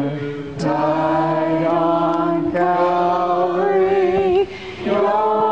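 A man singing a slow hymn in long held notes, the middle note wavering, with a short breath break about four and a half seconds in.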